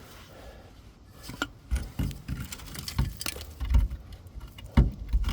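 Irregular metal clicks and knocks with a few dull thuds as a new gas shock absorber and its mounting bolts are handled and worked into place under the van, starting about a second in.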